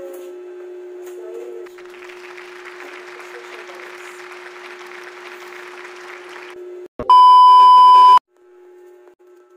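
Steady low hum with a hiss over it for a few seconds, then, about seven seconds in, a click and a loud single-pitched test-tone beep lasting just over a second: the 1 kHz beep of a TV colour-bar test card.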